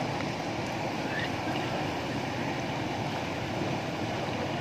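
Steady rush of turbulent canal water pouring out from under a bridge and churning downstream.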